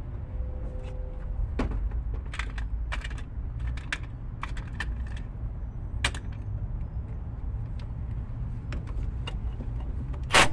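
Scattered light clicks and clinks of hand tools and metal parts being handled on an engine, over a steady low rumble. Right at the end a cordless Milwaukee M18 power tool starts with a short, loud burst.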